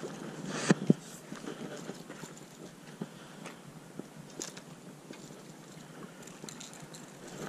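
Spinning rod and reel being handled and cast: two sharp clicks about a second in, then light scattered ticks and knocks.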